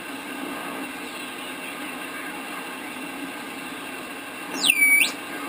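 Hallicrafters S-108 tube shortwave receiver hissing with static and faint signals as its dial is tuned across the 40-metre amateur band. About four and a half seconds in, a loud squealing whistle sweeps up and back down in pitch for about half a second as a strong signal is tuned through.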